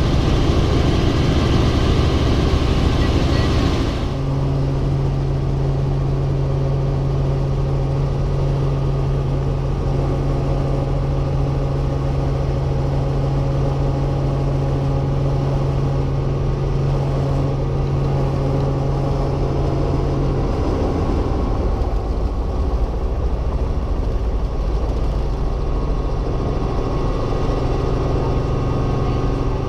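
Helicopter running steadily, a loud even drone with a strong low hum. The sound changes abruptly about four seconds in, and the low hum drops away about twenty seconds in while the drone goes on.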